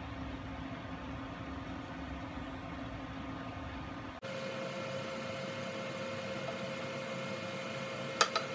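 Steady hum of a portable induction cooktop running under a pan of stir-frying vegetables. The hum's pitch changes abruptly about four seconds in, and a few sharp clicks of a wooden spatula against the pan come near the end.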